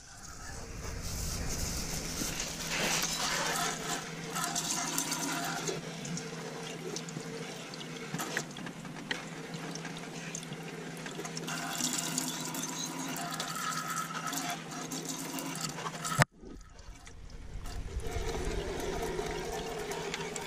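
A thin jet of water spraying onto a car engine's cover and heat shield, hissing and spattering as it rinses off dish-soap foam. It breaks off briefly with a click about sixteen seconds in, then starts again.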